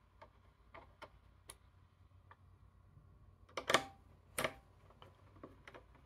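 Faint, scattered small clicks and ticks of a screwdriver working the screws of a CPU heatsink on a mini PC motherboard, with two louder clicks about three and a half and four and a half seconds in.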